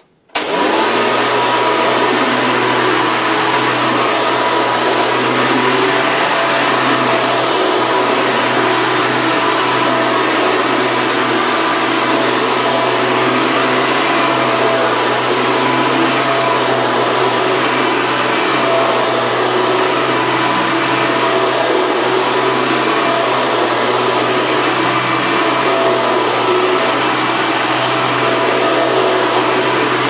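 1993 Hoover Legacy Supreme upright vacuum cleaner with a 7.3-amp motor, switched on about half a second in and then running steadily while pushed over carpet: a loud, even whir with a steady motor hum.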